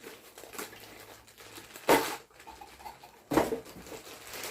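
Plastic figure packaging crinkling and rustling as it is handled and opened, with two sharp louder crackles about two seconds in and again about a second and a half later.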